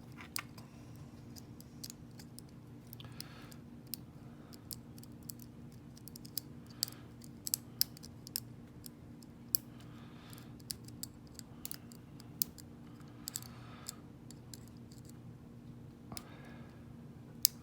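Lock pick and tension wrench working the pins of a small laminated padlock: irregular light metallic clicks and ticks, a few sharper ones, over a steady low hum.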